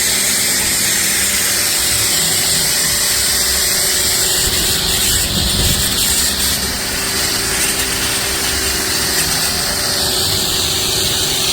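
Pressure washer running and spraying: a loud steady hiss of the water jet over the steady hum of its motor and pump, cutting off suddenly at the end.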